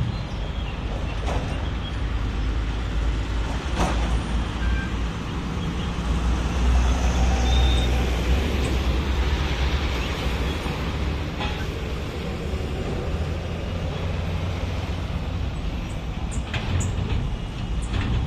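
Heavy dump truck's diesel engine rumbling as it drives past close by, loudest about six to eight seconds in, over road traffic noise.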